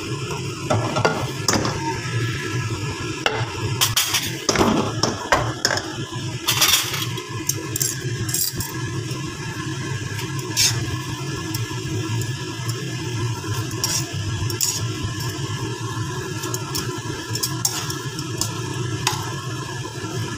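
Wooden spatula scraping and knocking against a granite-coated wok as rice vermicelli noodles, vegetables and pork are tossed in stir-frying, with a light sizzle. The knocks come thickest in the first seven seconds, then become sparse over a steady low hum.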